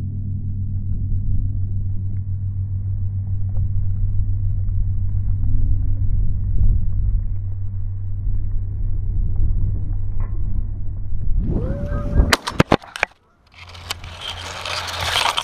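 A steady low hum, then a quick volley of shotgun shots about twelve seconds in, fired at geese flying over decoys. It ends in a rustling as grass brushes against the camera.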